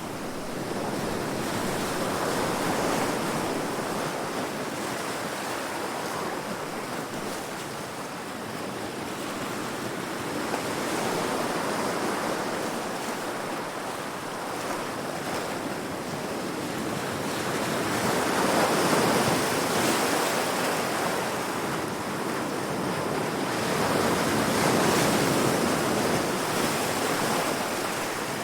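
Heavy sea waves breaking against rocks: a continuous rushing surf that swells louder and eases off as each wave comes in, with the biggest surges about two-thirds of the way through and near the end.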